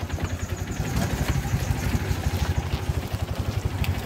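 Auto rickshaw's small engine running steadily, with rapid, even low pulses, heard from on board.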